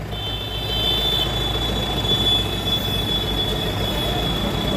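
Mahindra Scorpio engine running at idle, with a steady high-pitched squeal held over it for nearly five seconds.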